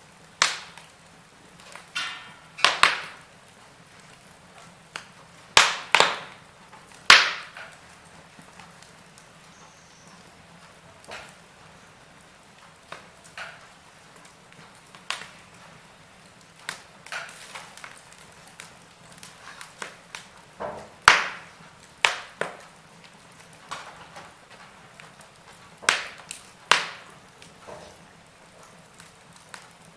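Wood fire crackling in a fireplace: irregular sharp pops and snaps, some loud and many small, over a faint steady hiss.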